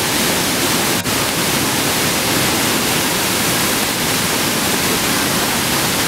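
Steady, loud rushing of a flood-swollen river pouring over a waterfall, with one momentary dropout about a second in.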